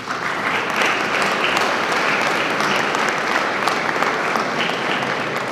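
An audience applauding with dense, steady clapping.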